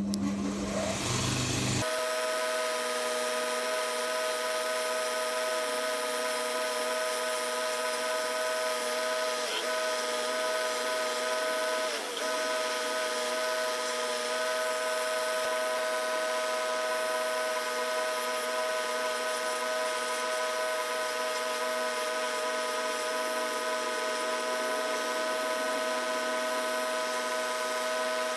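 Power grinder running at a steady speed while rough-shaping a knife handle, its pitch dipping briefly twice about a third of the way in as the work is pressed against it.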